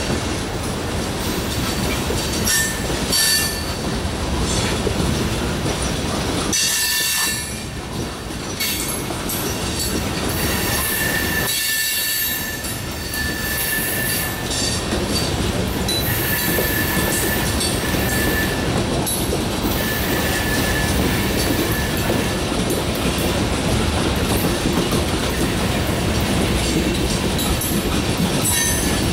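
Loaded coal hopper cars of a freight train rolling past with a steady rumble of wheels on rail. High-pitched wheel squeal comes and goes several times.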